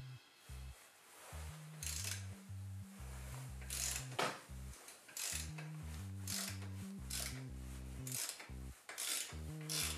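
Ratchet wrench clicking in short runs on its back-swings as it undoes a fastener on a motorcycle cylinder head's rocker assembly, over background music with a stepping bass line.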